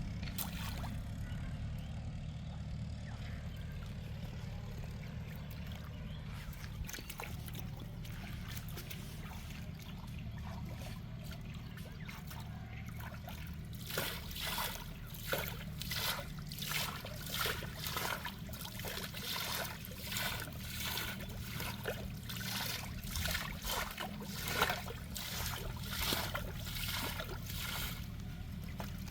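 Water trickling and sloshing over a steady low hum. About halfway through, a quick run of splashes begins, a couple a second, and keeps going.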